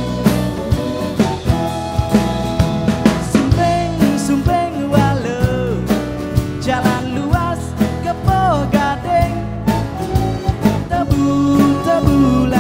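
Band music with a steady drum beat and bass under a melody line that slides up and down in pitch.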